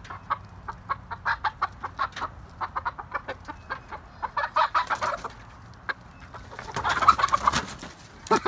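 Chickens clucking rapidly and squawking in alarm as they are chased and grabbed at in their run. The loudest burst of squawking comes about seven seconds in.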